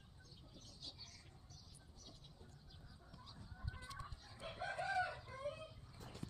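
Chicken calling, with fainter calls from about three seconds in and a louder drawn-out call about four and a half to five and a half seconds in.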